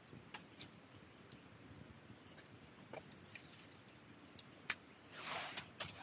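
Wood fire crackling in a folding metal fire pit: faint, irregular pops and snaps, with one sharp, loud pop near the end, followed by a rushing noise that rises in the last second.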